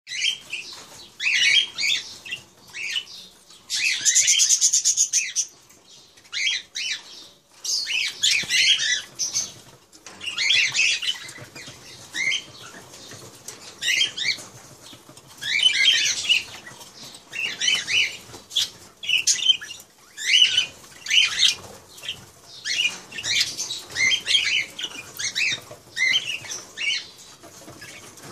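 Caged ringneck parakeets at a feeding bowl: short, high chirps and rustling bursts come irregularly about every second, with one longer, denser flurry about four seconds in.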